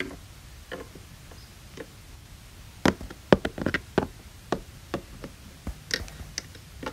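Light clicks and taps of a plastic toy figure being handled and set down on a hard plastic surface: a quick cluster of sharp taps about three seconds in, then scattered single taps.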